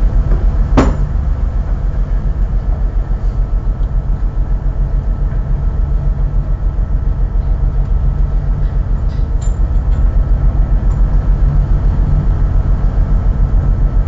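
Fishing vessel's diesel engine running under way, a steady low pulsing thump, with one sharp knock about a second in.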